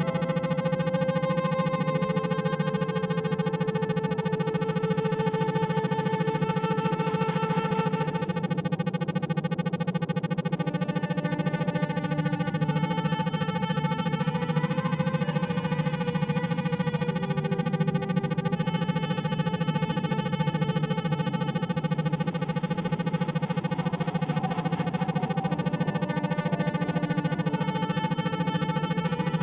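Electronic synthesizer drone music: a steady low hum under sustained higher tones that slowly change every few seconds, at an even level throughout.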